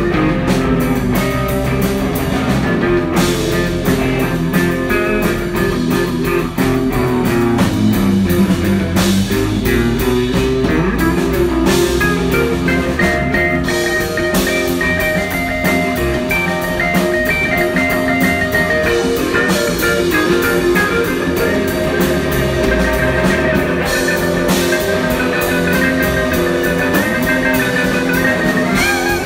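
Rock music with guitar and drums playing throughout.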